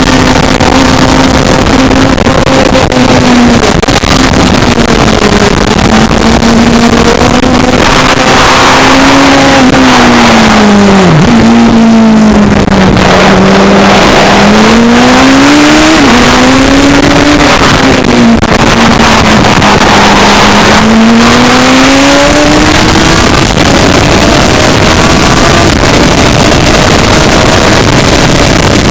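Racing sidecar outfit's engine running hard, loud, its note sinking and climbing several times as revs fall and rise, with a sharp drop and jump about eleven seconds in. A dense rush of wind and road noise on the onboard microphone runs under it.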